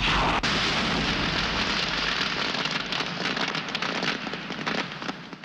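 A film sound effect of an explosive flash bursting in suddenly, then a dense, steady crackling and hissing of a shower of sparks, which cuts off abruptly at the very end.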